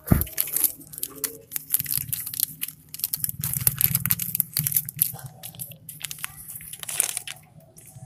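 Clear plastic packet crinkling and rustling as it is handled and opened, in irregular crackles, with a sharp bump right at the start.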